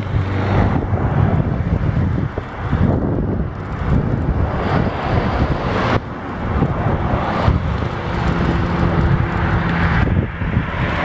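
Heavy wind buffeting the microphone of a bicycle in motion, mixed with the noise of road traffic.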